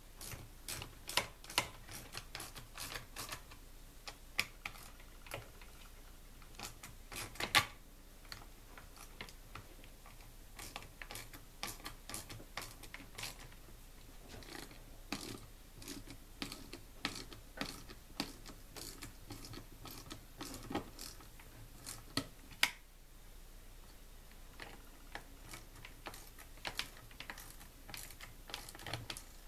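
Hand socket ratchet clicking in irregular runs as the 8 mm nuts are turned down onto the air filter housing studs of a Stihl MS250 chainsaw, with small tool-and-plastic handling knocks; a sharper knock comes about seven and a half seconds in.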